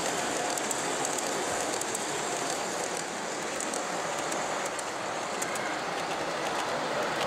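Gauge 1 (1:32 scale) model train running on the layout, with light irregular clicking from the wheels and track over a steady background hiss.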